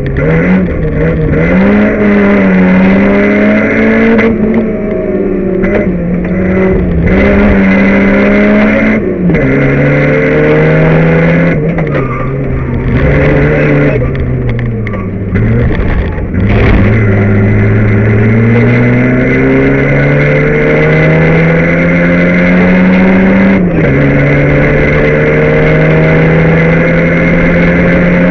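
Rally car's engine heard from inside the cabin, revving hard through the gears: long climbs in pitch broken by sudden drops at each upshift, and a stretch of falling revs while slowing in the middle, over steady road and tyre noise.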